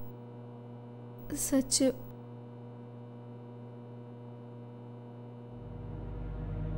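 Steady electrical hum with several steady tones beneath, broken early on by one spoken name. Near the end a low sound swells in and grows louder as the film's background music begins.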